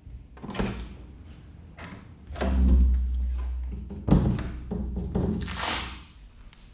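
A door opening and someone coming into a large, echoing room: knocks and thuds, a low rumble about two seconds in, a sharp knock just after four seconds, then a short hiss.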